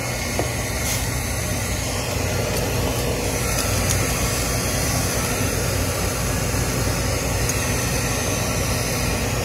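Steady hum and rush of a rooftop HVAC unit's fan motors running during a heating start-up attempt, with no clear ignition event.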